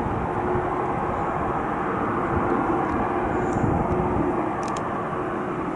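Boeing 747-400 freighter's jet engines running at taxi power. It makes a steady, even jet noise with a constant low hum.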